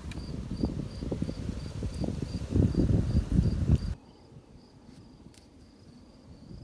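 A cricket chirping steadily in a high, even pulse of about three chirps a second. For the first four seconds, louder irregular low crackling and knocking sounds over it, then stop abruptly.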